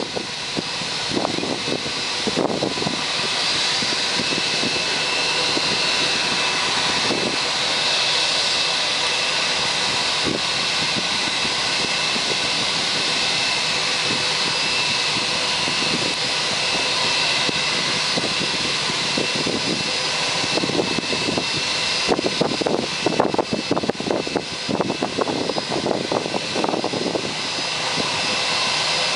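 Steady jet whine from a parked Airbus A320, with several high tones held level, growing louder over the first few seconds. Gusts of wind buffet the microphone about two seconds in and again through the last several seconds.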